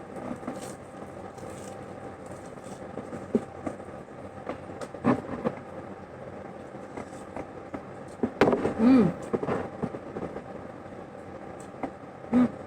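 A person eating: scattered chewing clicks and lip smacks, with a short hummed mouth sound about eight and a half seconds in, over a steady background hum.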